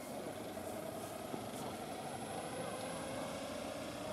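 Large radio-controlled scale Sea King model helicopter running on the ground as it spools up, with a steady whine that slowly rises in pitch.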